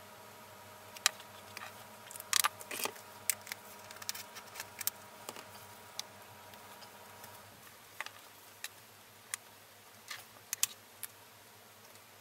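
Scattered small clicks and taps of marker pens being handled: caps pulled off and pushed back on, and pens set down on the work table, with a cluster of clicks a couple of seconds in. A faint steady hum lies under them.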